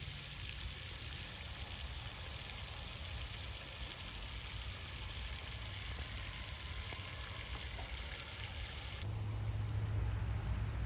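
Pond fountain spraying and splashing, a steady even hiss of falling water. A low rumble underneath grows louder near the end.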